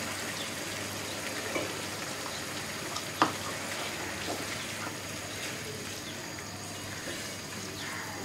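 Egg korma gravy sizzling in oil in a pan as thick milk is poured in and stirred with a silicone spatula. A sharp knock sounds about three seconds in.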